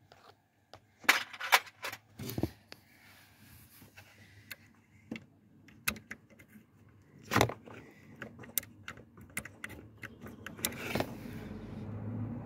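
Metal hand tools and timing-locking tools clinking and tapping against the engine's timing gear while they are set in place: a scattered series of sharp clicks and knocks.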